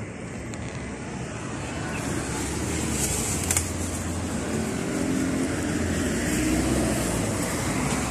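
Road traffic: cars passing on a city street, the rumble growing louder about two seconds in, with a brief sharp knock about three and a half seconds in.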